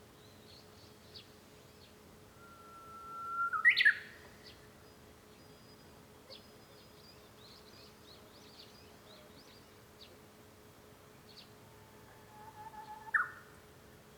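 Japanese bush warbler (uguisu) singing its "hoo-hokekyo" song twice: each time a long steady whistle that swells, then breaks into a quick upward flourish. The first comes about three seconds in; the second, lower-pitched, comes near the end.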